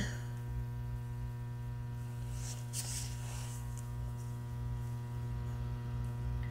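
Steady electrical mains hum with a buzzy row of overtones, and a faint brief rustle about two and a half seconds in.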